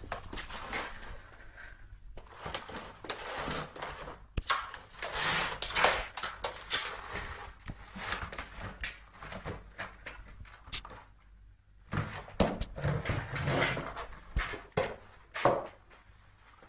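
A cardboard box scraping and knocking along the floor as a cat with its head stuck inside pushes it about, in irregular scrapes and bumps with a brief lull about two-thirds of the way through.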